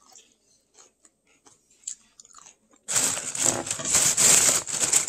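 Crisp fried corn tostada crunching as it is eaten, close to the microphone: a few faint clicks at first, then about three seconds in a dense, loud run of crackling crunches.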